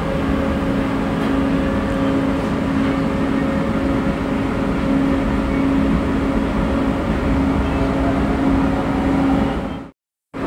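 Pune Metro train running through a station, heard from inside the carriage: a steady rumble with a constant hum tone. It cuts out abruptly near the end.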